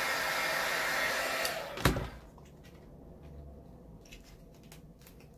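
Heat gun blowing steadily, then stopping about two seconds in with a sharp click; after that only faint, scattered light ticks.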